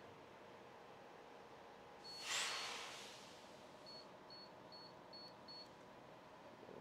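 Fuel pump keypad beeping: short high beeps, two about two seconds in and then a run of five about half a second apart. A short hiss about two seconds in is the loudest sound.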